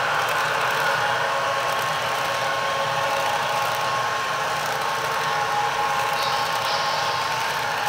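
Model passenger cars rolling fast around curved track: a steady rolling noise with a whine.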